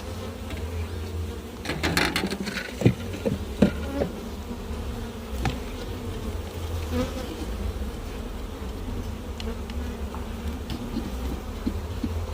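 Honey bees buzzing steadily around an opened hive, with a few sharp knocks and clicks about two to four seconds in and fainter ones later.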